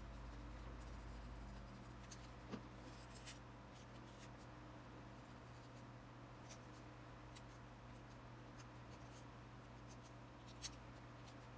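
Faint handling of cardstock: paper rubbing and a few soft ticks as folded paper pop-up pieces are glued and pressed into place by hand, over a low steady hum.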